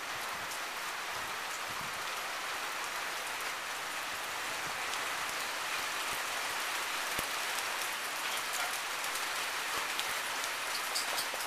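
Steady rain falling on wet grass and standing floodwater, with a few sharper drop ticks near the end.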